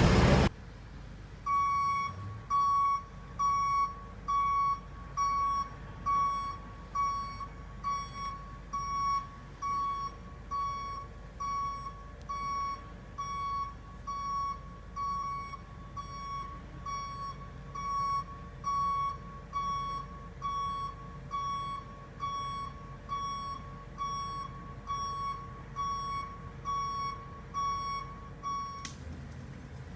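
Construction vehicle's reversing alarm beeping at a steady single high tone, about one beep a second, stopping near the end.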